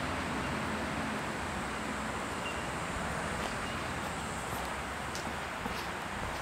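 Steady outdoor background noise, an even hiss like wind or air, with a few faint light clicks in the second half.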